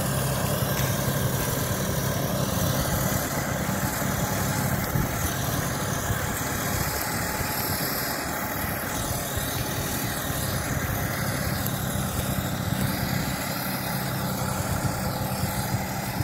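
Farm tractor's diesel engine running steadily while it drives a tractor-mounted spinner seed and fertilizer spreader across a field.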